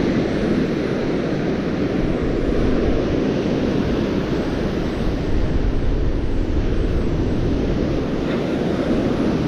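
Strong wind buffeting the microphone: a steady, loud rumble without a break.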